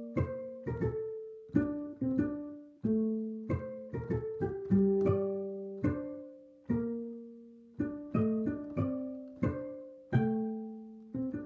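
Background music: a plucked string instrument playing a slow melody, each note struck sharply and left to ring and fade.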